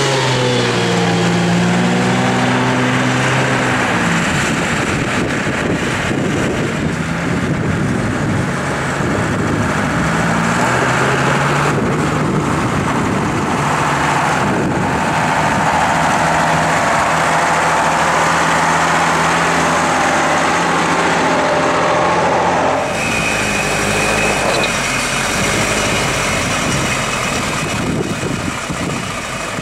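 Mercedes-Benz Unimog diesel engines running under load off-road, the engine note rising and falling in the first few seconds. About three quarters of the way through the sound changes abruptly to a lower, steadier engine sound.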